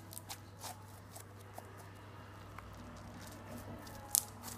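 Homemade slime being kneaded and pulled apart in the hands: faint, scattered sticky clicks and small pops, with a sharper double click near the end, over a steady low hum.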